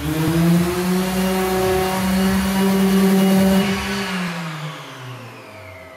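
Handheld electric sander running against the wooden frame of a cabinet: it spins up at the start, runs steadily, then is switched off about four seconds in and winds down with a falling pitch.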